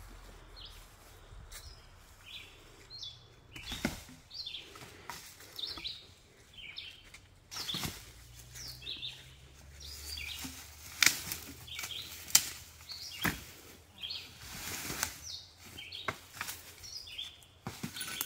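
Woodland birds chirping over and over in short high calls, with several sharp snaps or knocks among them; the two loudest come about eleven and twelve seconds in.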